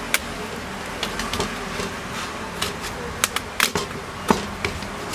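Irregular sharp clicks and ticks, about ten of them, from a laptop keyboard's metal backplate and the plastic top-case clips as the keyboard is pressed and pried loose; the loudest come about three and a half and four seconds in.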